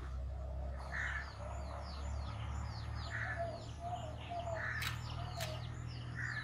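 Crows cawing about every second or so, with small birds chirping in quick falling notes around them. Two sharp snaps about five seconds in.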